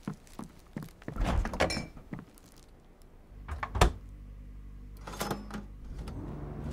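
Footsteps on a hard floor, then an old refrigerator door pulled open with a sharp thunk a little under four seconds in. The fridge's low, steady electric hum runs on after it, with a few small clicks near the end.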